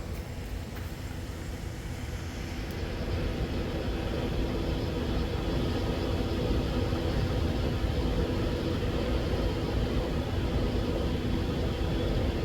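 A motor vehicle engine running steadily, getting louder about three seconds in and then holding.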